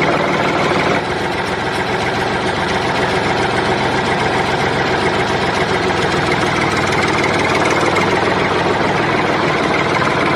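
A steady engine-like motor sound running without a break, with a slight drop in loudness about a second in.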